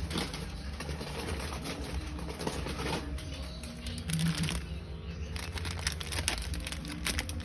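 Background music over rustling and light clicks as snack packages and drinks are handled.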